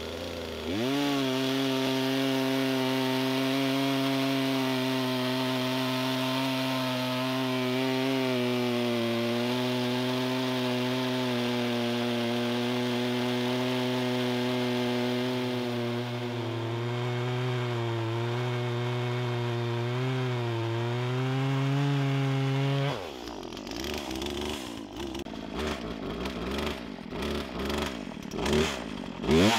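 Poulan Pro PR4218 42cc two-stroke chainsaw revved to full throttle and cutting through a large log. The engine pitch dips slightly now and then as the chain bites under load. About three-quarters of the way through it drops back to a low idle with some rattling.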